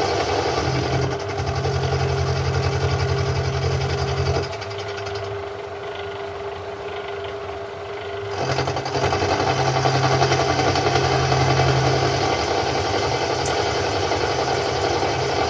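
Small metalworking lathe running with a milling slide, its cutter milling a slot in a bar-stock socket tool. A steady machine drone and hum that goes quieter for about four seconds a few seconds in, then comes back up.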